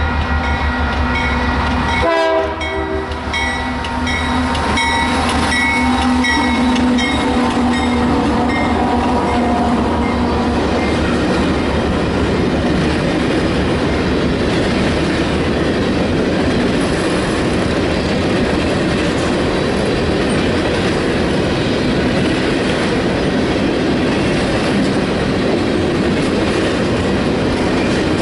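Multi-chime horn of a GE AC4400CW diesel-electric locomotive sounding a long chord for the first several seconds, then dying away about ten seconds in. From then on there is the steady rolling noise of the train's empty grain hopper cars going by on the rails.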